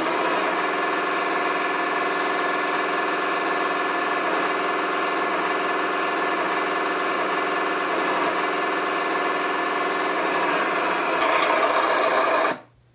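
An RC excavator's electronic engine sound unit plays a simulated excavator engine idling steadily through its small speaker, then cuts off suddenly near the end.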